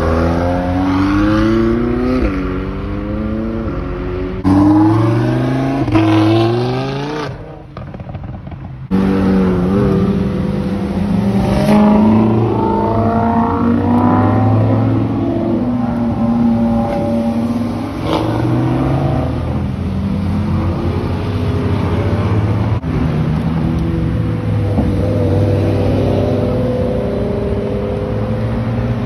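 McLaren supercars' twin-turbo V8 engines accelerating hard, the pitch climbing and dropping back at each quick upshift, then running on at steadier revs as the cars pull away.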